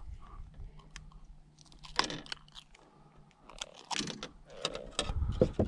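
Irregular small clicks, scrapes and rustles of needle-nose pliers working a hook free from a channel catfish's mouth while the fish is handled. The handling noises get busier in the second half.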